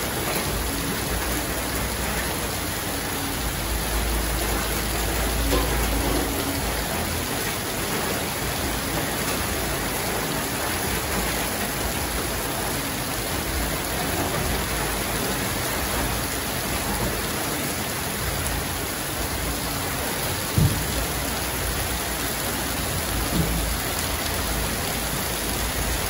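Heavy downpour: a steady loud hiss of rain hitting the street, with water running off the roof edge and splashing close by. A low rumble rises about four seconds in and fades by six, and there is one sharp knock about twenty seconds in.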